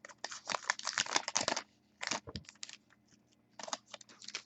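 A trading-card pack's wrapper being torn open and crinkled, with the cards handled, in three short spurts of rustling.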